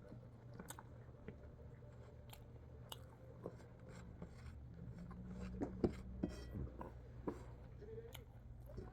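A person eating: chewing with scattered light clicks and knocks, busiest a little past the middle, over a steady low hum.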